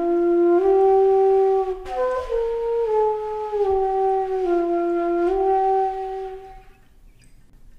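Background music: a simple flute-like melody of held notes stepping up and down, fading out about six and a half seconds in.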